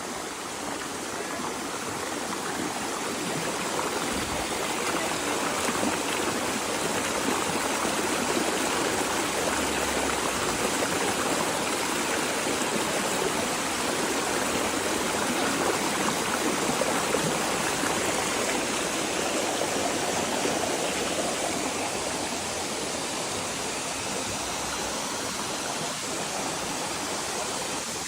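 Steady rush of flowing water, a stream or waterfall running close by.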